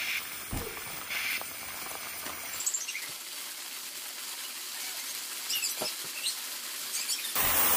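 Helium hissing from a tank nozzle into a giant clear confetti balloon, with the loose confetti pattering and scrabbling against the inside of the latex. The hiss gets louder near the end.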